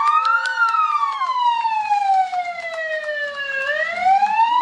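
A siren wailing: its pitch tops out about half a second in, falls slowly for about three seconds, then rises again near the end.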